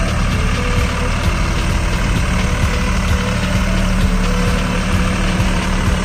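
Tractor engine running steadily at idle, a continuous low hum with a faint regular pulse.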